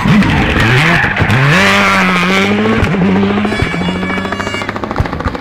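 Rally car's engine passing close on a tarmac stage, the revs dropping and rising sharply several times through gear changes before settling and fading away. From about three and a half seconds in, a helicopter's rotor chop comes in overhead.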